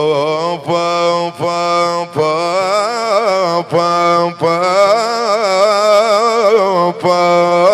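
A man singing a long, wavering melismatic vowel line of an Arabic mawwal, broken into several held phrases by short breaths, over a steady low drone.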